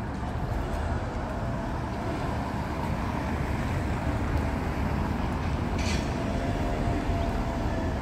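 Steady road traffic on a city street: cars driving past with a continuous low noise, and a brief hiss about six seconds in.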